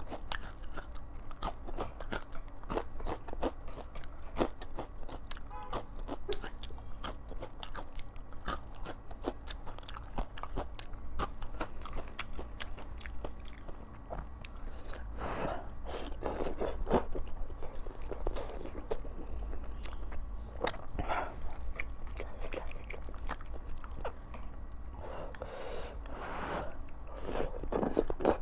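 Chewing and crunching of crispy fried chilies and chaoshou wontons: many small crisp crunches. A few longer, louder slurps of soup come about midway and near the end.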